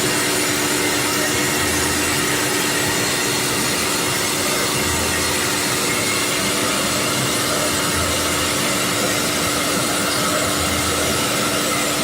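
Multi-spindle CNC router running: a steady spindle whine over a constant hiss, with faint low rumbles coming and going.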